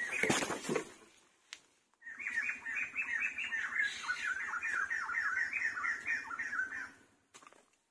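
A fast run of repeated animal calls, about five short pitched notes a second, lasting some five seconds before stopping. A brief noisy rustle comes first, then a single click.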